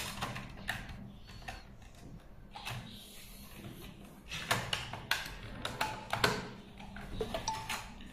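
Plastic clicks and knocks from the splice tray of a fiber optic splice closure being handled and pressed into place by hand. The clicks are scattered, with a quicker run of them a little past the middle.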